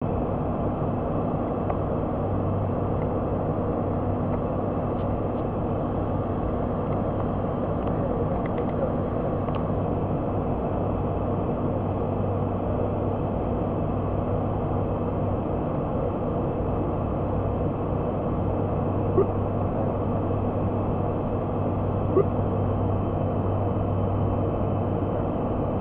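Steady drone of an ATR 72-600's turboprop engines and propellers heard inside the cockpit in flight: an even rushing hum with a low steady tone under it. Two short clicks sound near the end.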